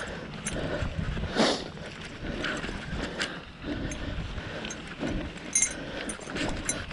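Bicycle riding over rough trail ground: irregular knocks, clicks and rattles from the bike, with wind rumbling on the microphone.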